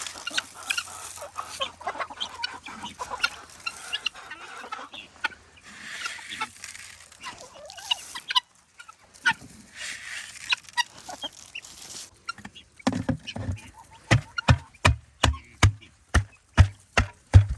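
Chickens clucking, then footsteps crunching through light snow starting about two-thirds of the way in, at a steady walking pace of about two steps a second.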